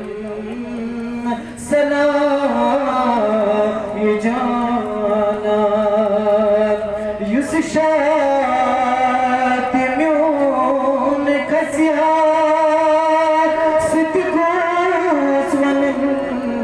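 A man singing a Kashmiri naat, drawing out long, wavering notes with short breaks between phrases.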